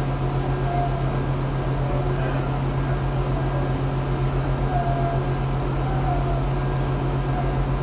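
Passenger train running, heard from inside the carriage: a steady low drone with a fast, even pulse. A few faint short voice-like sounds rise above it now and then.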